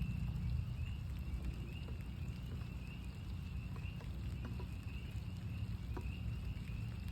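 A chorus of northern spring peepers, many high peeps repeating in quick succession, with scattered raindrops ticking and a steady low rumble underneath.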